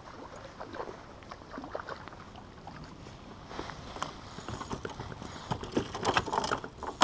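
Irregular rustling and knocking of an angler's jacket and fishing gear against the camera while reeling in and landing a fish from a kayak, busier and louder in the second half.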